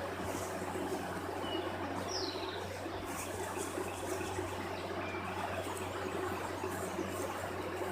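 A steady low hum under a constant hiss, with a few short bird chirps on top, including one falling chirp about two seconds in.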